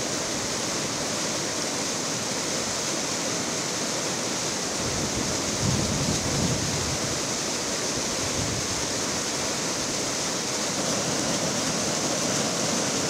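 Muddy floodwater rushing and churning around a palm trunk, a steady rush of fast-flowing water with slight swells.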